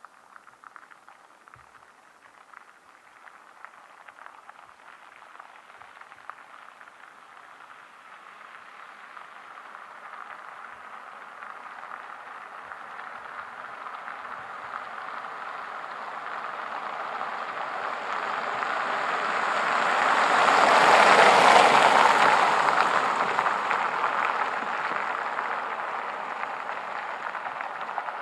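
2019 Kia K900 sedan driving past on an asphalt road: a steady hiss of tyre and road noise that swells slowly as the car approaches, peaks about three-quarters of the way through as it passes, then fades as it moves away.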